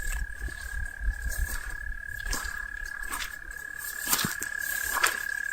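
A campfire crackling with scattered sharp pops, the loudest near the end, over a steady, unbroken high-pitched insect drone.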